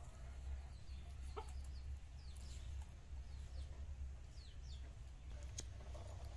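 Chickens clucking, with short high falling chirps scattered throughout and a low steady rumble underneath.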